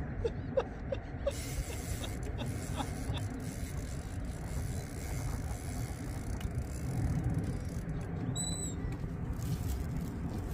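Steady wind buffeting the microphone, a low rumble, with a few light ticks in the first second and a half and a brief high chirp about eight seconds in.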